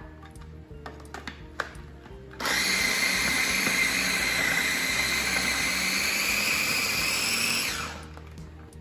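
Small electric food chopper running steadily for about five seconds, starting a little over two seconds in, chopping raw cauliflower pieces to a coarse texture.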